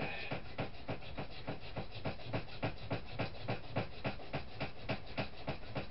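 Sandpaper rubbed back and forth by hand over a small cast fire bird figure, in quick even strokes about four or five a second.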